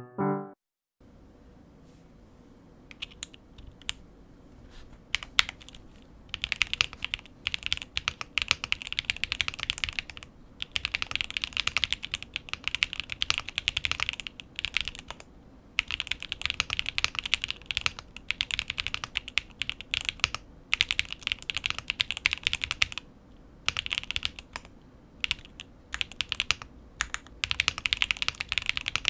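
Typing on a QK65 mechanical keyboard with Pure Berry 62g linear switches, a POM plate and ABS keycaps: fast runs of keystrokes with short pauses between bursts, starting sparse and becoming dense a few seconds in.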